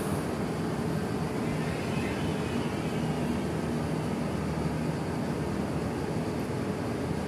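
Frecciarossa 1000 (ETR 400) high-speed electric train moving slowly at the platform, a steady hum over a low rumble.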